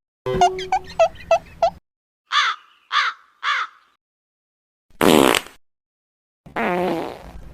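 A run of separate short meme sound effects. A quick string of pitched blips comes first, then three crow caws about half a second apart, then a short noisy burst and another brief noisy sound near the end.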